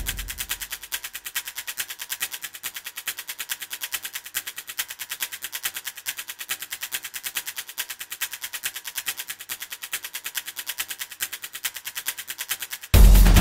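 Background music stripped of its bass, leaving a rapid, even train of sharp high percussive hits. The full, bass-heavy music crashes back in just before the end.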